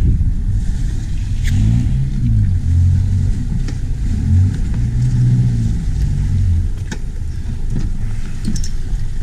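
Sailing yacht's inboard engine running with a deep low rumble, its pitch rising and falling from about one and a half to six and a half seconds in as it is throttled while the boat is manoeuvred at the quay. A few sharp knocks stand out over it.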